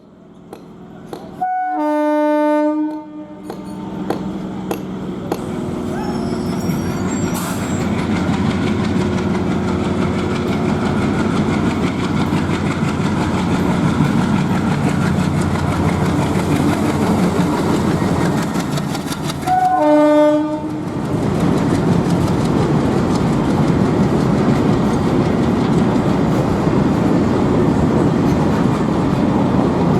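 Diesel locomotive-hauled express train approaching and passing. The locomotive horn sounds twice, about two seconds in and again about twenty seconds in, each time a short note then a longer one, over engine noise that builds and then holds steady with the rumble and clack of the coaches.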